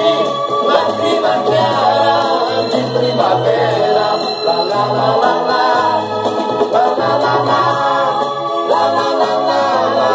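Backing-track music playing the instrumental close of a pop ballad, with a steady bass line and melody lines above it, and no lead vocal.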